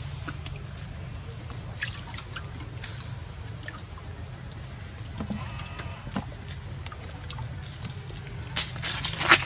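Water splashing and sloshing in a large ceramic jar as macaque monkeys, a baby among them, thrash about in it, with a run of louder splashes near the end.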